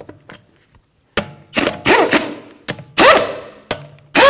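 Impact gun running 22 mm lug nuts onto a wheel's studs in a few short bursts, the tool spinning up and winding down with each trigger pull.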